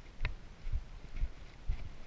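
Footsteps on a dry dirt trail, about two steps a second: each a low thud with a short light crunch.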